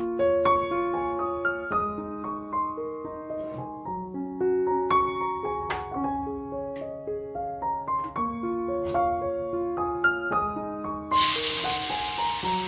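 Gentle piano background music plays steadily. About eleven seconds in, a loud sizzle starts suddenly as ground spice paste is poured into hot oil in a wok.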